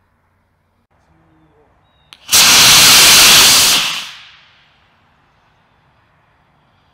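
A 3/4-inch PVC sugar rocket motor with a washer nozzle firing on a static test stand: after a sharp click about two seconds in, a loud hiss starts suddenly, holds for about a second and a half, then dies away over the next second as the motor burns out.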